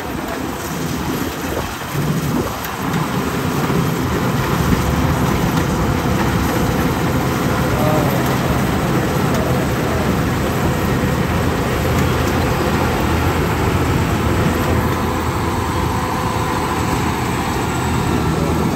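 Zoomlion FH100E tracked rice combine harvester running at close range: its diesel engine and harvesting machinery make a loud, steady din that swells about two seconds in and then holds level.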